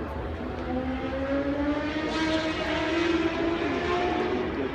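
Superbike racing motorcycle engine at high revs, its pitch climbing steadily as the bike accelerates, loudest from about two to three and a half seconds in.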